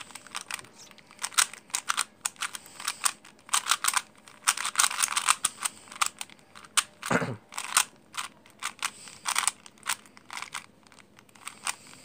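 A 3x3 Rubik's cube being scrambled by hand: its plastic layers turn with rapid clicking and clacking, in quick flurries with short pauses between them.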